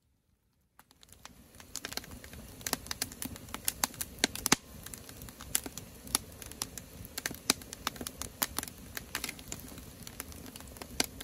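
Wood fire crackling and popping under a kettle, starting about a second in: irregular sharp snaps over a low steady rush of burning.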